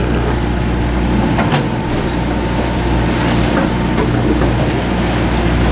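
A large fishing boat's engine running steadily with a low, even hum, with scattered small clicks and knocks on deck.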